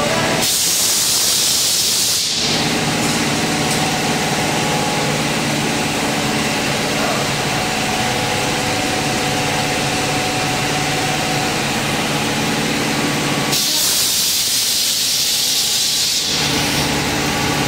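Compressed air hissing in two bursts, one of about two seconds near the start and one of about three seconds near the end, over a steady machine hum.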